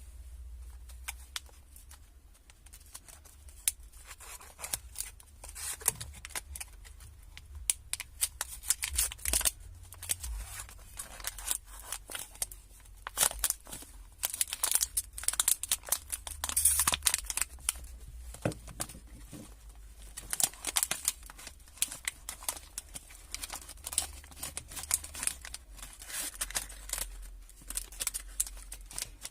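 Plastic snack wrapper crinkling and tearing as it is handled and opened, a dense run of irregular sharp crackles with louder bursts now and then.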